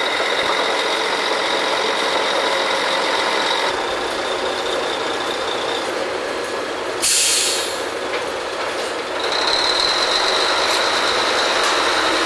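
Drilling rig machinery running steadily with a high whine, broken about seven seconds in by a short, sharp hiss of released air. After that the whine comes back and the machinery gets louder as the rig starts picking up to come out of the hole for a connection.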